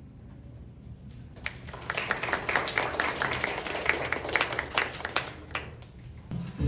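A small audience clapping, starting about a second and a half in and dying away near the end.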